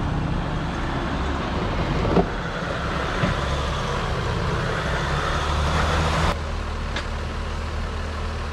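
Jeep Gladiator's engine running at low revs as the truck crawls slowly up a rock ledge, with a few sharp knocks of tyres on rock about 2, 3, 6 and 7 seconds in.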